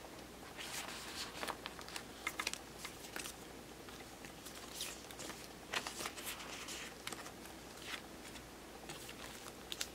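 Photocards being slid out of and into clear plastic binder pocket pages: quiet, irregular rustling and crinkling of the plastic sleeves with light ticks and taps of the cards.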